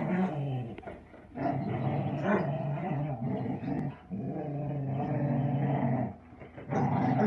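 Airedale terriers play-growling during a tug of war over a toy: long, low, steady growls, about four in a row with short breaks between.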